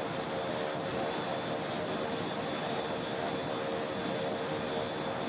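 Breguet Alizé's Rolls-Royce Dart turboprop running on the catapult, a steady whine over the rush of the propeller with no change in pitch or level.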